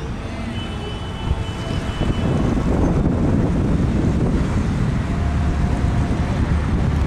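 Street traffic noise with wind on the microphone. It grows much louder about two seconds in, as a vehicle passes close by.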